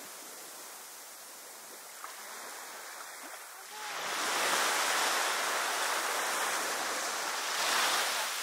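Sea waves on the shore: a soft steady surf hiss, then a bigger wave rushes in about four seconds in and draws back near the end.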